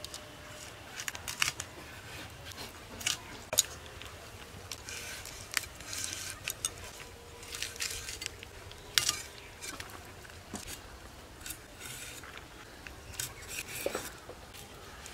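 Vegetables being cut by hand with a blade: irregular clicks, snaps and short scrapes, a few of them sharp.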